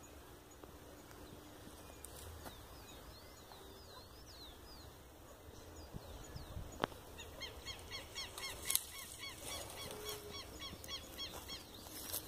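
Birds calling: short chirping notes, scattered at first and then repeated rapidly in a dense chorus through the second half, with one sharp click about seven seconds in.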